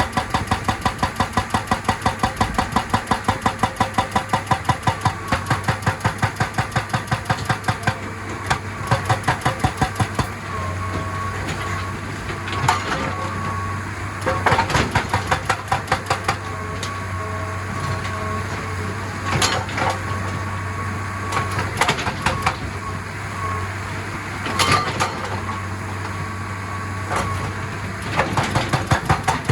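Excavator's hydraulic rock breaker hammering rock in rapid strokes, about four or five a second, for the first eight seconds, then in short spells. Between the spells the diesel engine runs steadily, with a few single sharp knocks.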